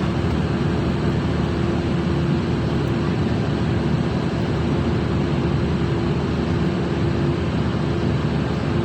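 Ship's machinery running steadily: a constant low drone with an even hum held at one pitch.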